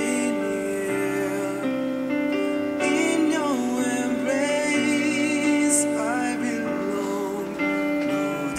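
Background music: a slow melody over sustained chords, the tune sliding between some of its notes.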